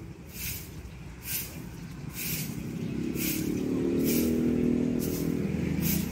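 A motor vehicle's engine passing, growing louder to a peak around the middle and then easing slightly. Short swishing sounds recur about once a second.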